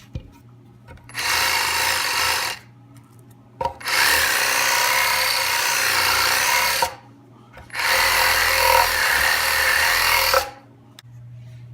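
Reciprocating saw fitted with a toothless, sandpaper-covered blade, run in three bursts of a couple of seconds each, sanding inside the juice groove of a wooden board.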